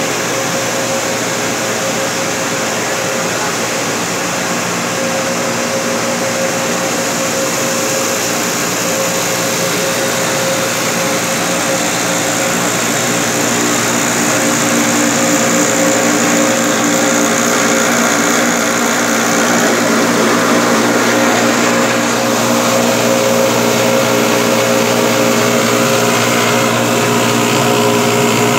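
A 120 kg/hr plastic granule (dana) extrusion line running: the extruder and strand pelletizer make a steady mechanical drone with a constant hum. It grows slightly louder, with added hum tones, from about halfway through.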